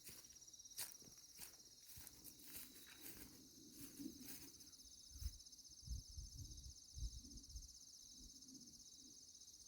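A steady, faintly pulsing trill of an insect chorus, with scattered soft clicks and rustles in the first half and a few low rumbles in the middle.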